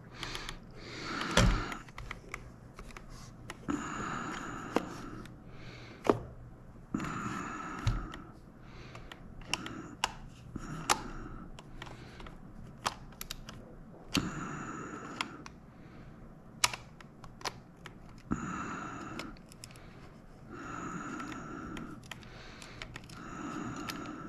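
Scattered sharp plastic clicks and taps as a Logitech Extreme 3D Pro joystick is handled and put back together, with a soft hissing sound lasting about a second every few seconds.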